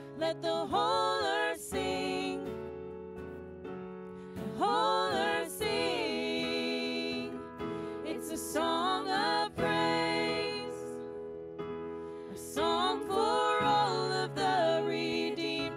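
Live worship band: a woman sings lead into a microphone over a Roland RD-2000 stage piano. Sung phrases come every few seconds, with held chords between them.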